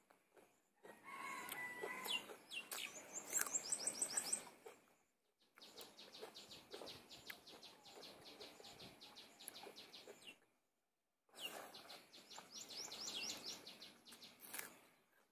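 Small birds chirping in quick runs of short rising notes, in three stretches broken by abrupt gaps; the loudest run comes about three to four seconds in.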